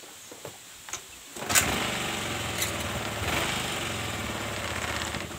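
Honda Vario 110 scooter's single-cylinder engine kick-started, catching at once about a second in and running steadily for about four seconds before it cuts off suddenly near the end.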